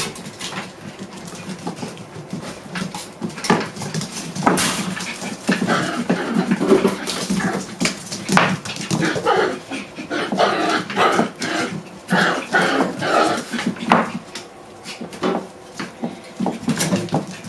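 Six-week-old puppies playing, giving short yips, whimpers and squeals that come thickest in the middle, among short clicks and knocks.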